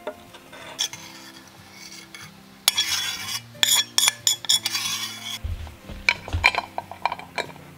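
Chunky cooked preserve scraped and tipped from a metal pot into a glass jar, the pot clinking and scraping against the jar rim, then a twist lid set on the jar and screwed closed with a run of clicks and knocks near the end, over soft background music.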